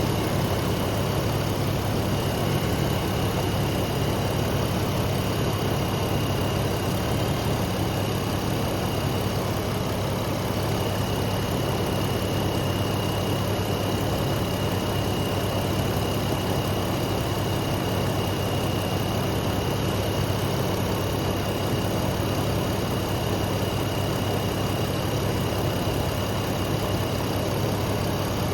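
Jeep engine idling steadily, with a thin, steady high-pitched tone over the hum.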